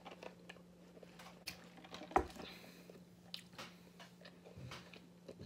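Faint sipping through a straw from a fountain-drink cup, with small irregular mouth clicks and one sharper knock about two seconds in, over a low steady hum.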